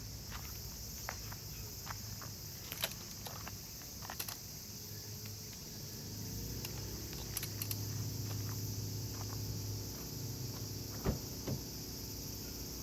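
Steady high-pitched drone of summer insects, with scattered sharp clicks and knocks and a low hum that swells in the middle of the clip.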